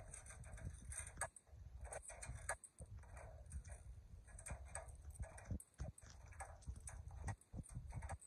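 Handling noise from a handheld phone being moved: irregular light clicks and taps over a low rumble.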